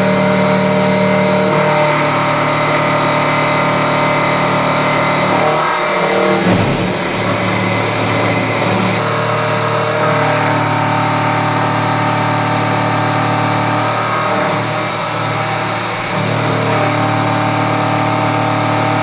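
Small CNC machine cutting mild steel under flood coolant: motors run with steady whining tones that step to new pitches every few seconds as the machine changes its moves, with a short noisy rough patch about six seconds in.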